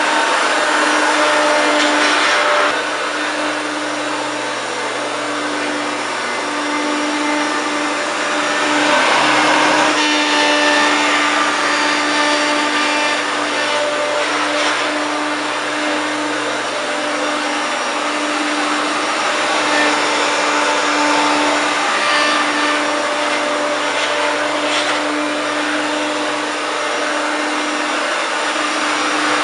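1993 Hoover Turbopower 1 vacuum cleaner running continuously, with a steady motor hum over airflow noise, a motor the owner says still sounds rough despite its largely new parts. The level dips slightly about three seconds in and swells again around eight to ten seconds.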